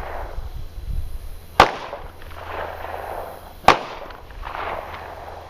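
Two single gunshots about two seconds apart, each a sharp crack followed by a brief trailing noise.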